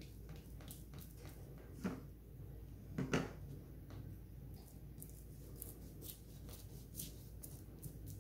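Wide flat brush spreading glue over a finished diamond painting, its bristles rasping across the resin drills in a run of short, faint strokes. Two soft knocks come about two and three seconds in, the second one louder.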